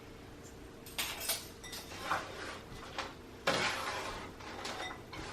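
Measuring spoons and bowls clinking and scraping in a handful of short bursts, the loudest about three and a half seconds in.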